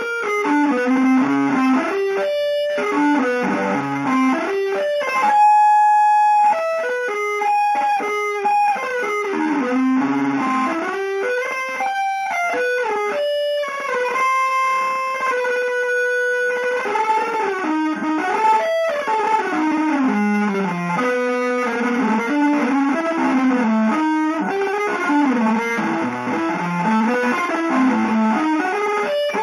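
Electric guitar playing a winding single-note melodic line through some effects, the notes stepping up and down with a long held high note about six seconds in.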